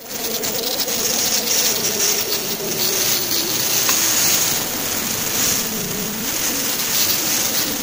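Oxy-fuel cutting torch of an RUR 3500 CNC cutting machine burning through 40 mm steel plate: a steady, loud hissing rush of the cutting-oxygen jet with a low wavering hum underneath.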